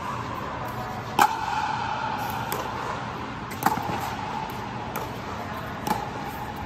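Pickleball paddles striking the ball in a rally: about four to five sharp pops one to two and a half seconds apart, three of them loud. Each pop is followed by a short echoing ring.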